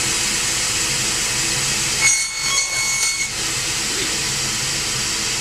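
Table saw running steadily. About two seconds in, its sound changes for about a second, with a thin high whine, as a gloved hand is pushed into the spinning blade.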